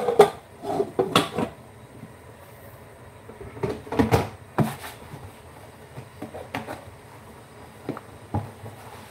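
Scattered knocks, clunks and rustles of household things being handled and set down, in clusters about a second in and around four seconds in, with a few single knocks near the end.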